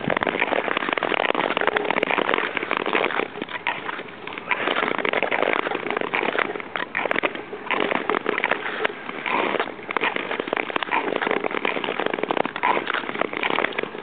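Nordic touring ice skates gliding over lake ice: a loud, dense scraping and crackling of the blades that surges and dips unevenly.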